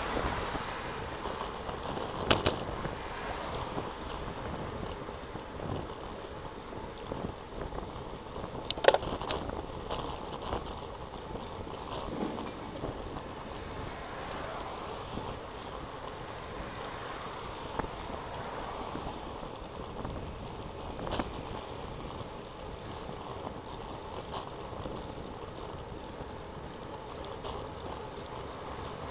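Steady rush of wind and road noise picked up by a camera riding on a bicycle, with a few sharp knocks as it rolls along, the loudest about nine seconds in.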